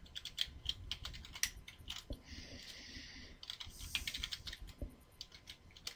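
Computer keyboard being typed: a quick, irregular run of faint key clicks as a short terminal command is entered, with a brief soft hiss a little over two seconds in.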